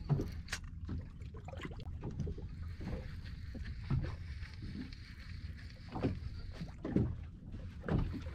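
Water lapping and slapping against the hull of a small boat at sea, soft irregular splashes every second or two over a steady low rumble.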